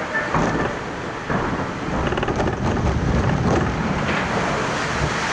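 Water rushing and splashing around a log flume boat, with a low rumble, growing louder about a second in and staying loud through the middle.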